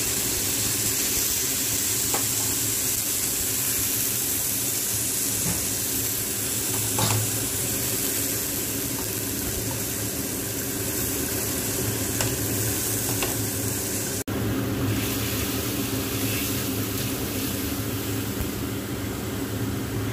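Red bell pepper strips sizzling in a hot wok as vinegar is poured in, with a few light knocks of stirring and a steady low hum underneath. The sound cuts abruptly about 14 seconds in and carries on as a similar steady hiss.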